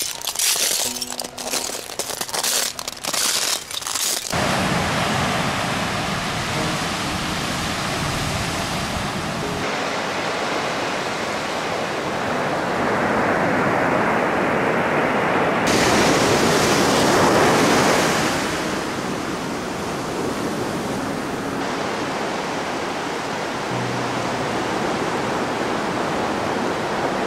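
Crunching footsteps across a thick bed of beach shells for about the first four seconds, then a steady rush of surf and wind that shifts in tone several times, with faint music underneath.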